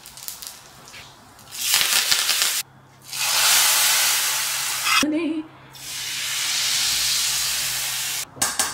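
Hot spiced tadka for sambar hissing and sizzling loudly as it is poured from a frying pan into a pot of sambar. The hiss comes in three stretches of one to two and a half seconds, each cutting off sharply.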